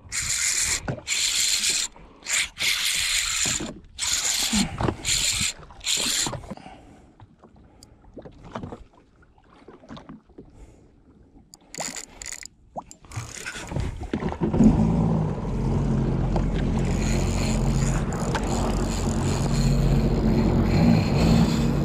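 Spinning reel's drag buzzing in short bursts as a hooked tuna takes line. About two-thirds of the way through, a jet ski's engine starts and then runs steadily.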